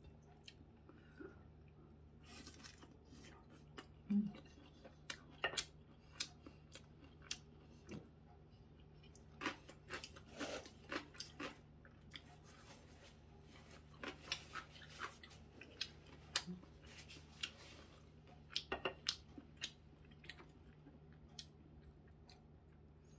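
A person chewing crisp breaded pork cutlet (tonkatsu) close to the microphone: scattered small crunches and clicks, busiest in the middle, over a faint steady low hum.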